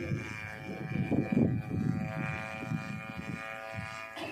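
Grass-cutter engine of a homemade radio-controlled plane flying overhead, a steady high-pitched buzz that holds one even pitch, under irregular low rumbling.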